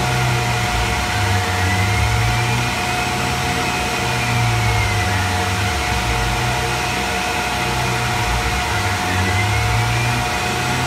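Tormach 1100 CNC mill running an end mill around a metal bolt knob under flood coolant, contouring the top into the sides. There is a steady spindle whine over a hiss of cutting and coolant. The cutting note rises and falls in slow sweeps every few seconds as the tool circles the part.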